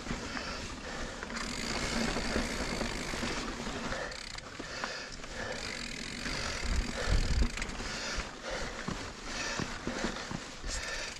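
Full-suspension mountain bike, a 2021 Giant Reign Advanced Pro 29, riding down a red dirt and slickrock trail: tyres rolling and crunching over dirt and rock while the bike rattles, with a couple of heavier thumps about seven seconds in.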